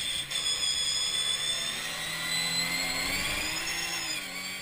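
Racing car engines running at high revs, several high tones gliding up and down as the cars accelerate and lift off. The sound begins to fade near the end.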